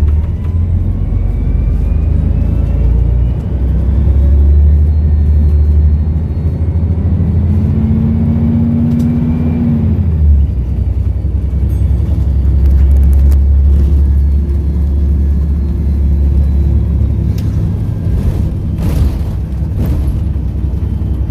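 Volvo B7RLE bus's diesel engine running under load with a deep rumble, while a high turbo whistle climbs slowly in pitch over the first several seconds. A short hum comes in about halfway, the rumble dips briefly, then it pulls steadily again.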